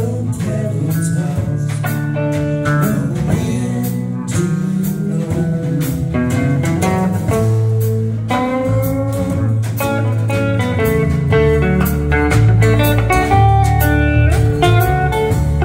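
Live band playing an instrumental stretch with no singing: guitar over a steady bass line and drums.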